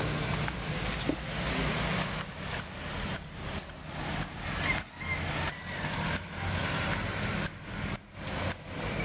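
Road traffic noise from vehicles on a nearby street, a steady low hum, with regular thuds about twice a second from the footsteps of the person walking with the camera.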